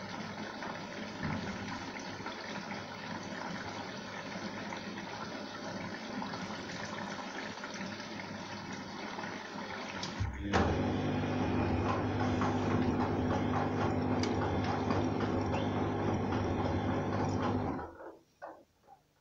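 Arçelik 3340SJ front-loading washing machine early in a Synthetic 60 wash: water hissing into the drum, then about ten seconds in the drum motor starts and tumbles the wet load with a steady hum and sloshing. The motor cuts off abruptly near the end, followed by a couple of faint clicks.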